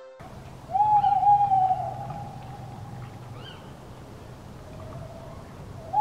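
A long animal howl that swoops up, holds and then slowly falls away, starting about a second in, with a fainter, lower howl near the end, over a faint night-time background hiss.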